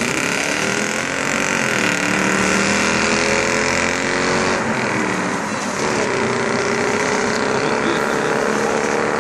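Mercedes CLS 500's V8 engine accelerating away, its pitch climbing steadily and dropping twice, about two and about six seconds in, as it shifts up through the gears.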